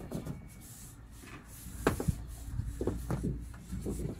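Paintbrush rubbing epoxy primer onto galvanized corrugated iron roofing in irregular scratchy strokes, with a few sharp clicks.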